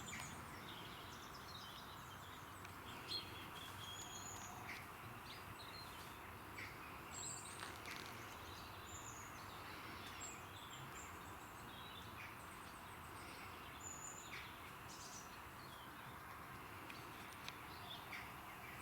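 Small birds chirping, many short high calls scattered throughout, over a steady faint background hiss.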